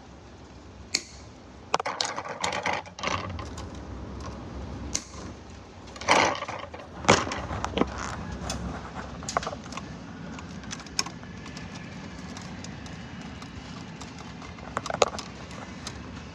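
Handling noise of electrical wires and tools: irregular clicks, knocks and rattles, busiest a couple of seconds in and again around the middle.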